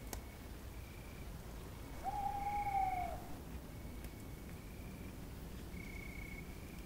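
Night ambience: one owl hoot about two seconds in, held about a second and dropping at the end, over short high cricket chirps repeating roughly once a second.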